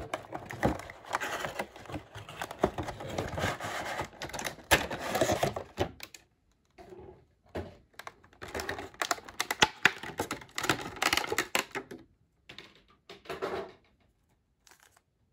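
Cardboard window box being opened and its clear plastic insert handled: crinkling plastic and scraping cardboard with many small rapid clicks. The noise is busiest for the first several seconds, stops briefly, then comes back in shorter spells as the vinyl figure is worked free of the plastic tray.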